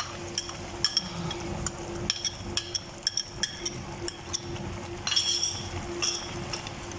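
A metal spoon clinking and tapping against a small steel bowl as sliced almonds and seeds are scraped out of it into a pot, in irregular sharp ticks, with a faint steady hum underneath.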